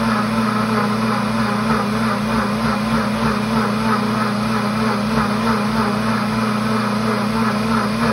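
Pampered Chef cooking blender's motor running steadily through its heated self-wash cycle, spinning the blades to churn hot wash water in the jug, with a steady hum.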